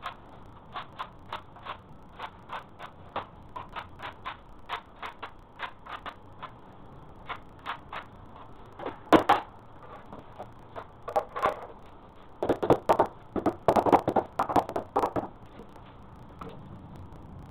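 A tool tapping lightly and evenly, about three taps a second, then stopping; after a pause come a few harder knocks and then a quick run of heavy, irregular knocks before it goes quiet.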